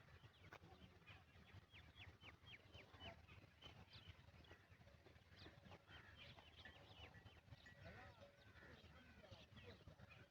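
Faint chirping of birds: many short calls, with a quick run of about six falling chirps about two seconds in.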